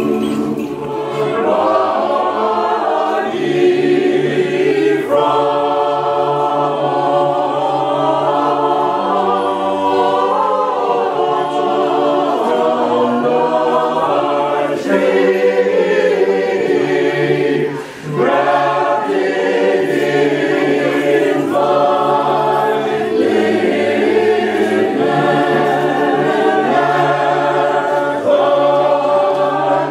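Orthodox church choir singing a hymn a cappella, several voice parts in harmony over a low bass line, with a brief break in the sound a little past the middle.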